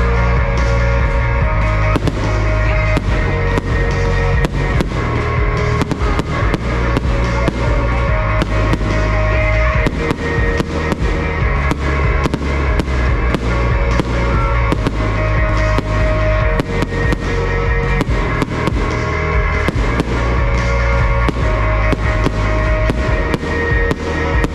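Aerial fireworks bursting and crackling rapidly and irregularly, many reports a second, over loud pop music with a heavy bass.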